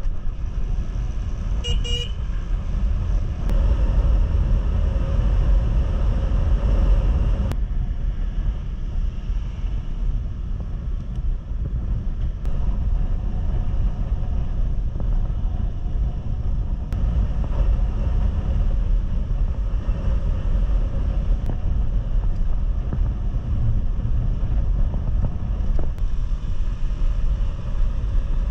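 Motorcycle riding along at speed: steady engine hum mixed with heavy wind rush on the microphone. A short horn beep sounds about two seconds in.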